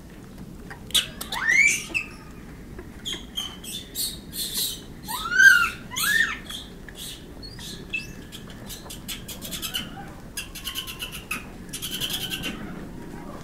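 Japanese macaques in a huddle giving several short, high-pitched calls that rise then fall in pitch, the loudest about five seconds in, with scattered clicks and short rattling sounds between the calls.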